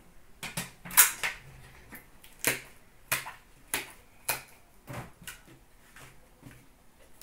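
Sharp clicks and taps from hands handling a trading card box and its packaging: a quick cluster about a second in, the loudest, then single clicks about every half-second.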